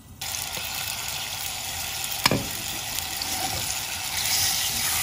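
Beef chunks sizzling as they sear in hot olive oil in a steel pot, a steady sizzle that grows a little louder near the end. A single sharp knock about two seconds in.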